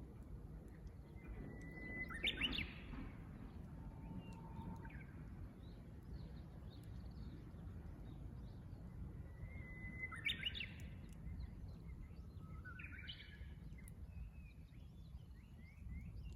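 Japanese bush warbler (uguisu) singing its "hoo-hokekyo" song twice, each a long held whistle followed by a quick burst of notes, with a shorter phrase near the end. Faint chirps of other small birds sit over a low, steady background rumble.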